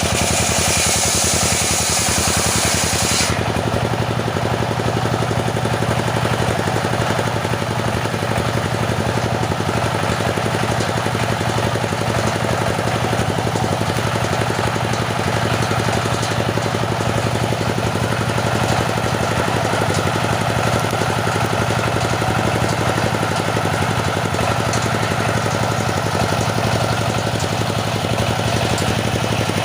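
Engine of a motor-driven wood saw running steadily, with a harsh high hiss of the blade cutting teak that stops abruptly about three seconds in, after which the engine keeps running evenly.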